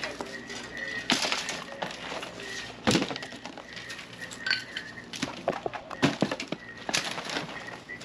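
Scattered light clinks, clicks and knocks from a pile of demolition debris of wood and metal sheeting, with faint high chirps coming and going in the background.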